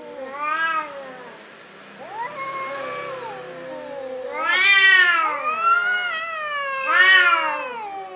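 Domestic cats yowling in a standoff: long, drawn-out caterwauls that waver up and down in pitch. Two louder rising-and-falling wails come about halfway through and again near the end. This is the threat yowling of cats squaring off before a fight.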